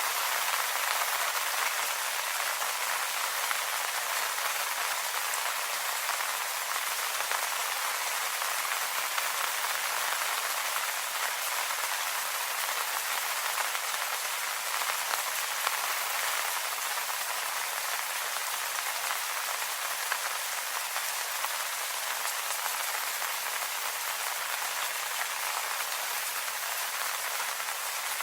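Steady rain falling on leafy foliage: a dense, even hiss of many small drops, with no single drops standing out.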